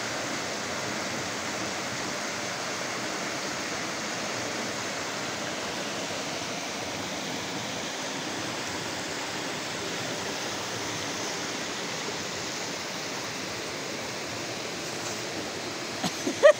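Kamenice River water rushing over rocks, a steady, even rush of running water.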